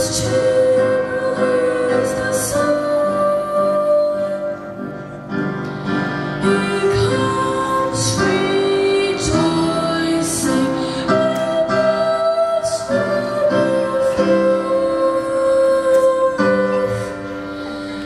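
A boy's unbroken voice singing a sacred solo into a handheld microphone, holding long notes over instrumental accompaniment.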